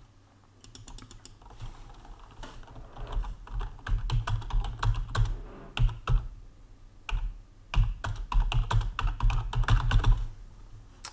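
Typing on a computer keyboard: irregular runs of keystroke clicks with a few short pauses, each key press carrying a low thump.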